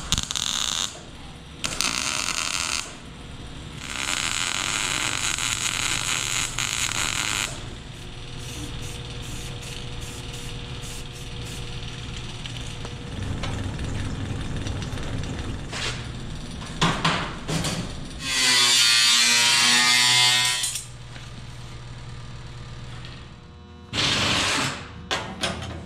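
Power tools working steel in several separate bursts of a few seconds each, the loudest about three quarters of the way through, with a steady low hum in between.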